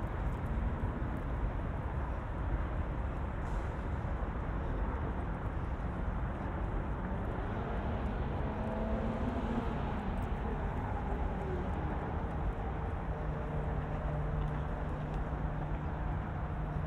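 Steady city traffic: cars passing on a road alongside, a continuous low rumble with a low engine hum rising out of it near the end.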